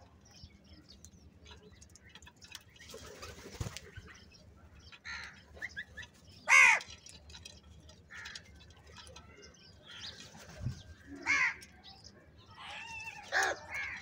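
A flock of house crows feeding: several short harsh caws, the loudest about halfway through and a cluster near the end, over light ticking of beaks pecking at the grain and a brief flutter of wings about three seconds in.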